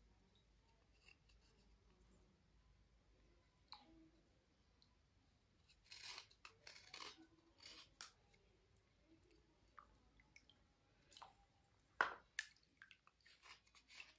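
Slate cubes being handled and cleaned: faint, scattered dry scrapes and clicks of slate, in short bursts, with one sharp click near the end.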